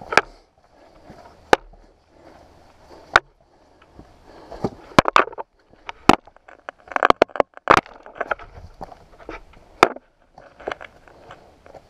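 A walking stick's tip striking rock as the hiker plants it, with footsteps on a rocky trail. The sharp, irregular knocks come loud through the stick to the camera mounted on top of it, with a quick run of knocks about seven seconds in.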